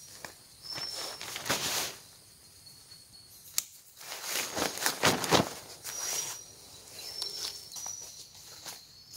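Intermittent rustling and scraping noises with a sharp click about three and a half seconds in. Short, high chirps of forest insects recur in the pauses.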